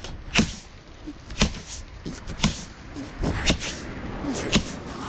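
Sharp knocks repeating about once a second, with no engine running.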